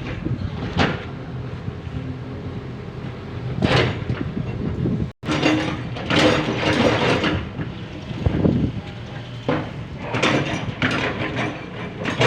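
Excavator's diesel engine running steadily under repeated clanks and scrapes of the bucket working through earth and debris.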